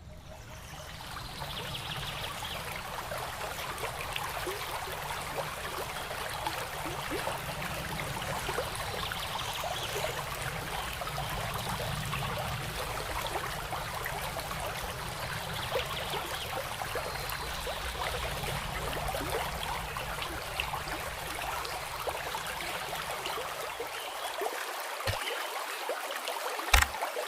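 A stream of water running steadily, an even rush of many small splashes. Two sharp clicks near the end, the second louder.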